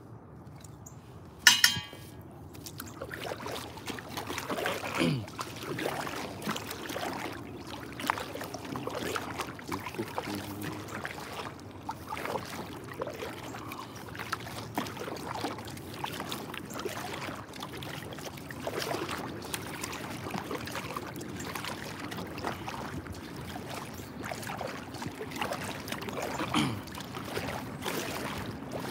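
Irregular paddle strokes with water swishing, dripping and gurgling as an inflatable rubber boat is moved across calm water. A brief loud sharp sound about a second and a half in.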